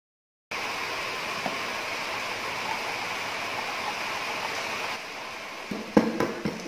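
Chopsticks beating thin flour batter in a china bowl: a steady wet swishing that eases off about five seconds in. Near the end come a few sharp clinks of china as an egg is taken from its bowl.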